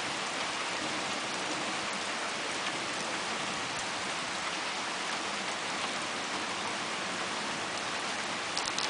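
Steady rain from a thunder shower, with a few sharp clicks near the end.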